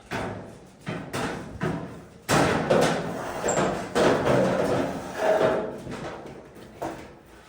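Irregular knocks, thuds and scraping as dryer parts are moved and handled during the repair.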